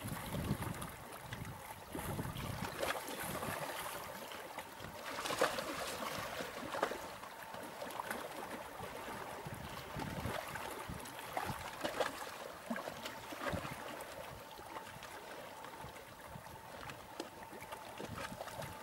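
Small sea waves lapping and sloshing against the rocks below a seawall, in uneven splashes, the loudest about five seconds in.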